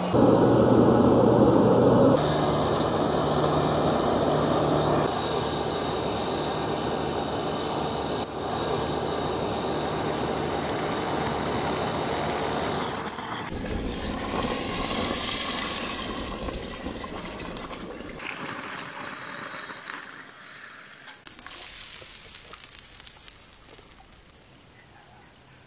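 Forge and quench sounds in short cut-together clips. A wood fire burns hard in a brick forge, then hot forged steel is plunged into a quench pot, which flares up and bubbles. The sound grows quieter toward the end.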